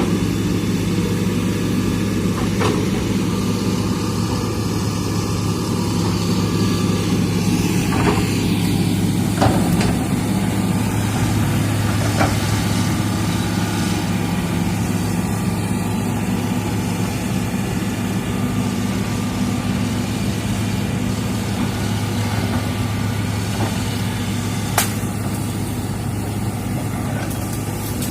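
Hitachi hydraulic excavator's diesel engine running at a steady pitch, with a few short sharp cracks or knocks scattered through.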